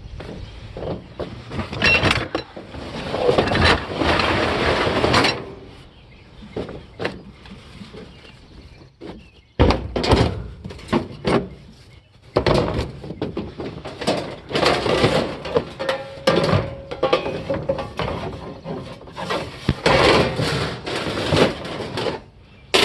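Scrap air-conditioning unit being pulled apart: repeated sharp metal knocks and clanks, with stretches of rattling and scraping.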